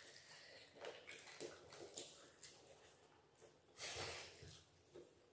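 Faint mouth sounds of people eating rice and curry with their hands, chewing and smacking, in short scattered bursts, loudest about four seconds in.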